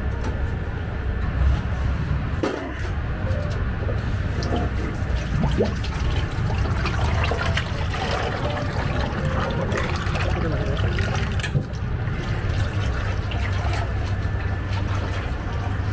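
Cooking oil pouring in a thick stream from a large square metal tin into an empty deep fryer, splashing onto the fryer's heating tubes, over a steady low hum.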